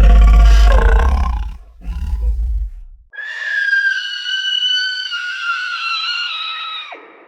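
Jersey Devil monster sound effect: a deep rumbling roar fading out in the first second and a half, a short growl, then a long high-pitched shriek of about four seconds, slowly falling in pitch before it drops away.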